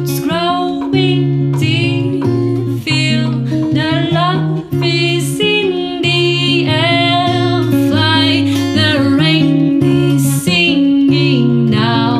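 A song played on acoustic guitar with a wavering sung melody, and sharp clicks of a devil stick being struck with hand sticks as percussion throughout.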